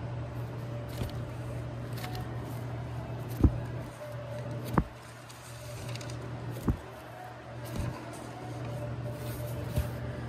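Cardboard LP record sleeves being flipped through in a record bin, the jackets knocking against each other in four sharp knocks, the loudest about three and a half seconds in, over a steady low hum.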